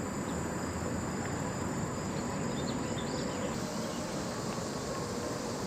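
Steady hum of traffic from a nearby busy road and highway, with insects droning high over it.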